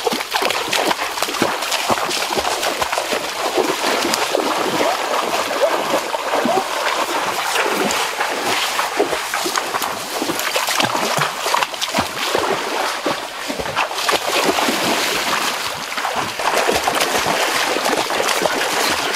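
Irregular splashing and sloshing of people wading and running through shallow creek water.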